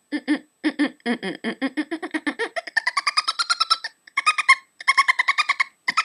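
A woman making a monkey-like vocal noise: a hum pushed out in quick staccato bursts, about eight to ten a second. It starts low, then about two and a half seconds in jumps to a much higher pitch, with a few brief breaks for breath.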